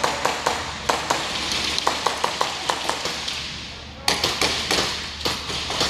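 Airsoft guns firing: sharp irregular shots, some single and some in quick runs of several, over a steady hiss.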